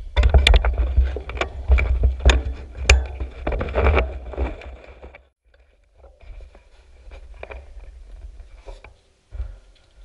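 Handling noise right at a bike-mounted camera: a quick run of clicks and knocks with a heavy low rumble over the first five seconds, then quieter scattered ticks and rubbing, as hands work on a mountain bike's front wheel and fork.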